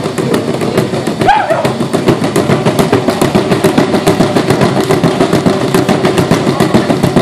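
Traditional Zulu drum beaten in a fast, even rhythm, about six strokes a second, accompanying dancers.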